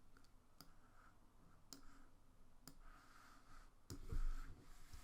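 Computer mouse clicking: four or five single clicks about a second apart, with a soft low thump about four seconds in.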